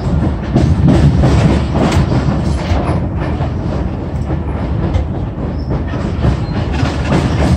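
Passenger train car rolling along the track: a steady rumble of wheels on rail with scattered clacks.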